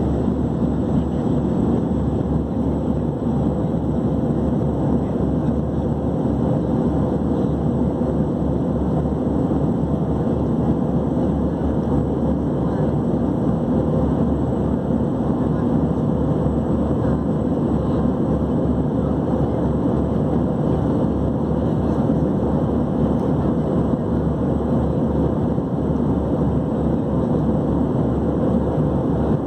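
Cabin noise of an Airbus A321 airliner in climb, heard from a window seat by the wing: a steady low rumble of the engines and rushing air, even throughout.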